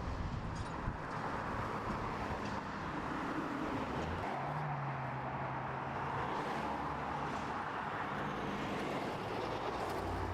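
Road traffic on a street: the steady tyre and engine noise of cars going by, with a low engine hum coming in about halfway through.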